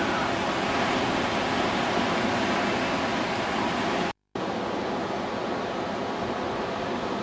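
Steady rush of sea surf breaking and washing over rocks. It drops out for a moment about four seconds in, then carries on a little quieter.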